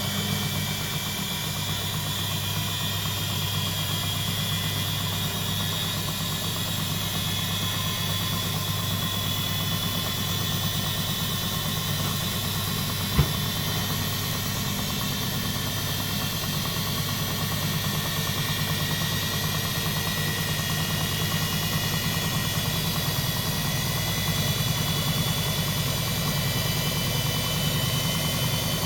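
Front-loading automatic washing machine running mid-cycle with its covers off: a steady low mechanical hum with faint high whines, growing slightly louder over the second half, and one sharp click about 13 seconds in.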